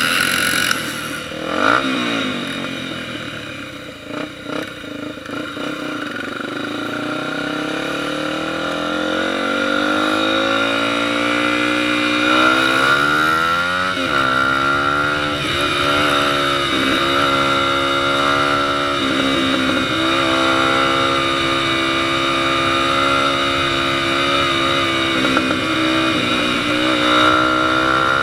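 Honda XR 250 Tornado's single-cylinder engine under way: the revs drop about two seconds in as the throttle eases off, then climb through several gear changes and settle at a steady cruising pitch for the rest.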